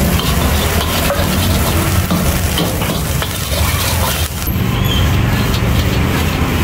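Fried rice with beef and vegetables being stir-fried in a wok: a metal spatula scraping and knocking against the pan over sizzling, with a steady low rumble underneath.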